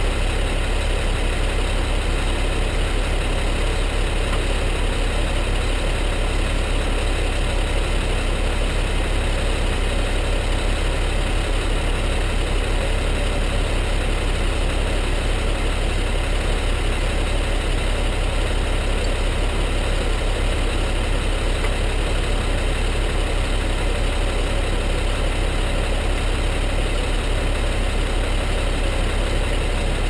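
Tow truck's engine idling steadily, with a low, even throb.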